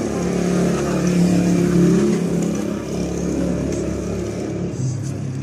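A motor vehicle engine running nearby, its pitch holding steady and then settling a little lower near the end.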